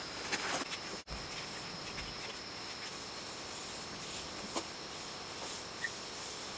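Insects chirring steadily in the background, one continuous high-pitched tone, with a few faint clicks from the handwork.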